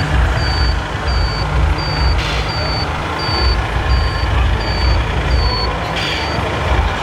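Reversing beeper of an RC model truck, a steady high beep repeating about one and a half times a second over a loud low rumble. Two short hisses come about two seconds in and again near the end.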